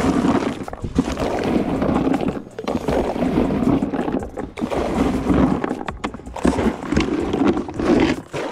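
Handfuls of boilies being scooped up and thrown into the river from an inflatable boat, rattling and splashing in repeated bursts about once a second.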